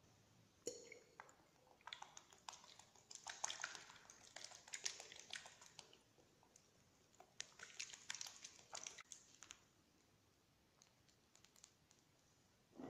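Faint clicks and soft scratchy dabbing as sugar syrup is applied to a chocolate sponge cake layer, with a short ringing click of a utensil just under a second in.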